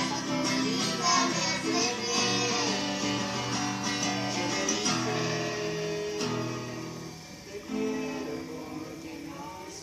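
Acoustic guitar strummed with voices singing over it, a song growing somewhat quieter toward the end.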